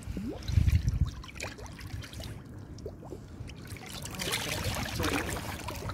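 Water sloshing and splashing around a large mirror carp held by hand in shallow water, with dull knocks about half a second in and a stronger splashing near the end, as the fish is let go.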